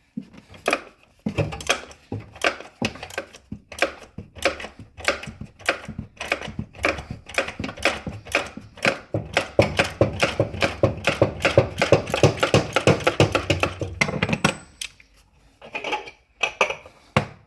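Socket ratchet clicking rapidly as it spins the oil filter housing cap off, the clicks running in quick strokes and stopping near the end.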